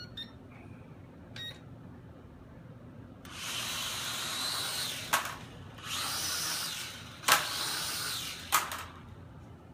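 Discovery U818A-1 toy quadcopter's geared motors, one of them newly replaced along with its propeller, spinning up about three seconds in to a high, steady whine as it takes off in a test flight. The whine dips once, and three sharp knocks come in its second half.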